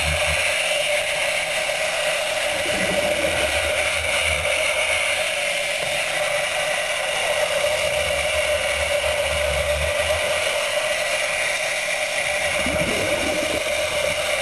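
Underwater chainsaw running steadily, heard through the water as a constant mechanical whine, with low rumbles that come and go.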